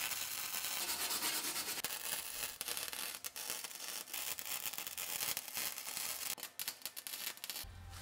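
Lincoln Pro-MIG 140 welder running gasless flux-core wire, its arc crackling and spitting steadily as it welds thin steel sheet metal. In the last couple of seconds it goes in shorter bursts with brief breaks, then stops.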